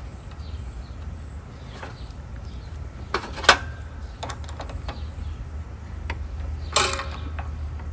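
Small metal clicks and clinks of a bolt and nut being fitted to the positive terminal of a lawn tractor battery, with the loudest clicks about three and a half seconds in and again near seven seconds in. A steady low hum runs underneath.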